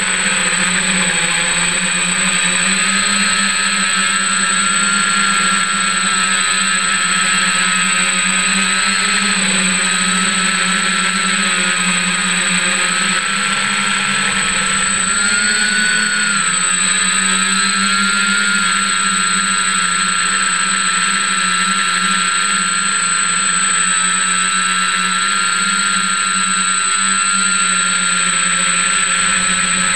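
F550 hexacopter's six motors and propellers whining steadily in flight, heard from the onboard camera. The pitch wavers with the throttle, dipping and then rising again about halfway through.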